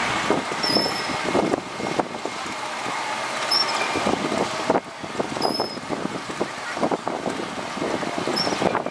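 Paratrooper ride spinning: steady machinery noise with the seats sweeping past in repeated whooshes. A short high squeak recurs every two to three seconds.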